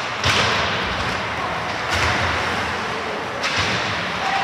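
Ice hockey game sounds: stick-and-puck slaps and thuds, with hissing scrapes that swell about every second and a half, like skate blades cutting the ice.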